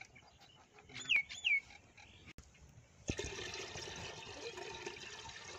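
Two short whistles falling in pitch about a second in, then, from about three seconds in, a steady stream of water poured from a jug into an aluminium cooking pot.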